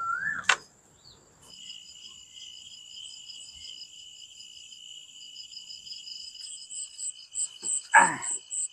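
Crickets chirring steadily at night in several high pitches, one in rapid even pulses. A brief loud sound with a rising-then-falling pitch comes at the very start, and a short lower call near the end.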